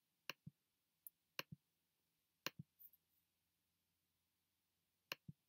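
Computer mouse button clicking several times, each click a quick double tick of press and release, with a pause of over two seconds before the last one.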